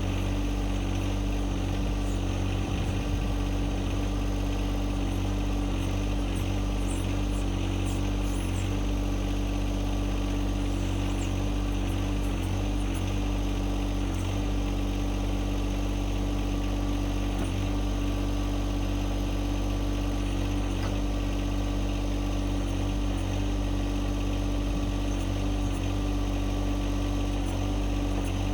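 John Deere 2025R compact tractor's three-cylinder diesel engine running steadily, powering the backhoe hydraulics while the boom is worked.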